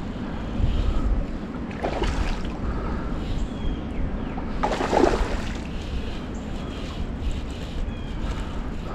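Wind buffeting the microphone over the rush of stream water, with louder moments about two and five seconds in.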